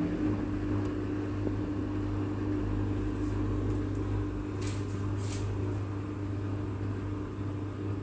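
Samsung front-loading washing machine running, its drum motor giving a steady hum as the drum turns the wet load. There are two short hisses a little past the middle.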